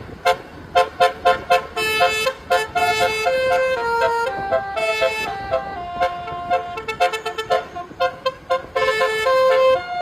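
Bus's basuri telolet musical horn playing a melody: quick short toots, then longer notes stepping up and down in pitch, then quick toots again near the end.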